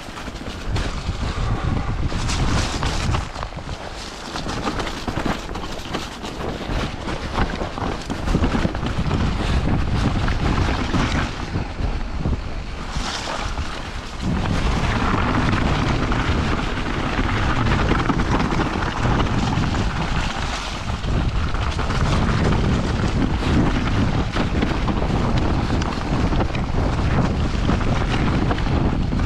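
Wind rushing over the camera microphone while a mountain bike rolls down a snowy trail, its tyres rumbling over snow and dirt. The noise gets louder about halfway through and stays steady.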